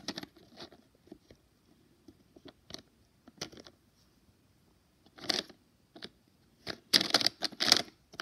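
Scattered clicks and rustles of a small plastic Littlest Pet Shop figure being handled and set down on plastic disc pieces, with louder bursts of rustling about five seconds in and again near the end.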